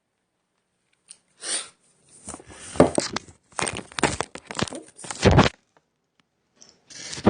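Snow crab leg shells being cracked and pulled apart by hand: a run of crunching, cracking bursts with sharp snaps, a pause of over a second, then one more burst near the end.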